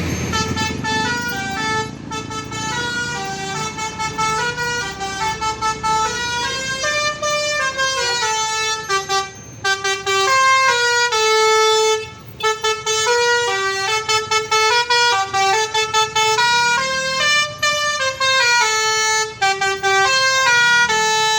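Bus 'telolet' musical air horn playing a melody: a quick run of stepped horn notes that climb and fall, repeating the same phrase, broken by a couple of short pauses.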